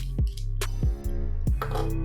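Background music with a steady beat: kick drum and snare over a deep, sustained bass line.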